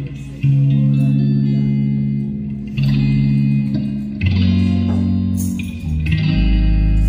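Two electric guitars played through amplifiers in a slow instrumental intro: held chords that change every second or so, with a deep low note coming in near the end.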